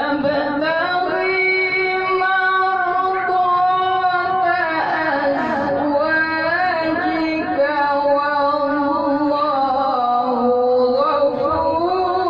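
Solo male voice chanting Qur'an recitation (tilawah) in long, held, ornamented notes, beginning abruptly, with a sliding melodic turn about halfway through and a dip to a lower note near the end. The reciter is unwell with a cough, and his voice is strained by it.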